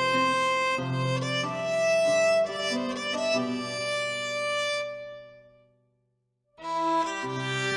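Instrumental background music: a melody fades out about five and a half seconds in, there is half a second of silence, and a new piece starts abruptly near the end.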